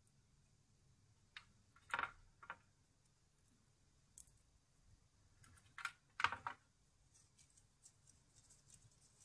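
Dried Cuban oregano stems snapping between the fingers: a few sharp cracks in two clusters, about two seconds in and about six seconds in. Near the end comes faint crackling of a dry leaf being crumbled.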